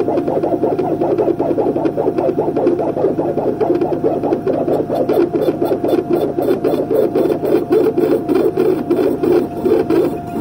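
Dental milling machine grinding a porcelain block with two burs under water spray: a steady whirring grind that pulses rapidly, with a faint steady tone over it.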